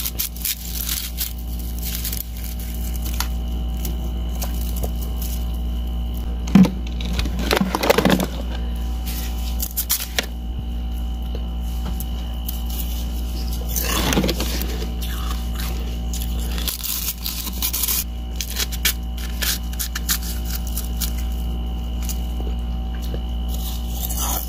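Gloved hands handling and rubbing a hollow shell of balloon-frozen ice: scraping and crackling, with louder scrapes about a quarter of the way in and again just past halfway, over a steady low hum.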